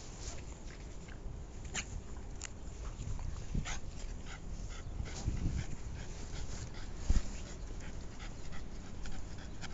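A French bulldog's small vocal and breathing sounds, with many short scratchy clicks and one louder thump about seven seconds in.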